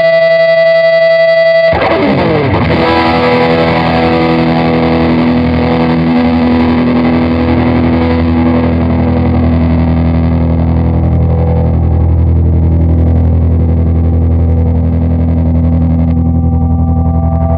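Electric guitar played through a Red Witch Pentavocal Tremolo pedal. A held tone gives way to a chord struck about two seconds in, which rings and sustains. Near the end a steady held tone like the opening one returns.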